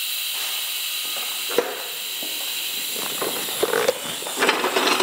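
TIG welding arc on stainless-steel exhaust tubing, a steady hiss, with a sharp click about one and a half seconds in.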